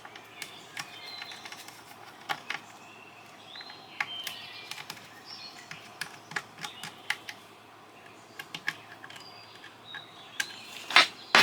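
Irregular light clicks and taps of small metal and plastic parts being handled and pried at while a satellite LNBF is taken apart, with faint chirps in the background. Near the end a rapid run of loud, sharp strikes begins.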